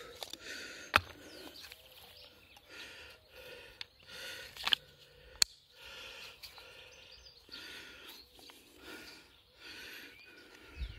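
Hard plastic knife sheath being handled and fitted onto a knife, with several sharp clicks. Faint bird chirps in the background.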